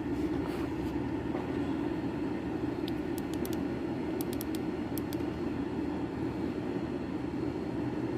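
Steady low mechanical hum of running machinery, with a few faint light clicks in the middle.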